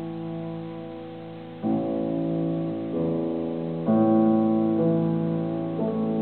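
Grand piano played solo: slow, sustained chords, the first held and fading, then a new chord struck about once a second from about a second and a half in.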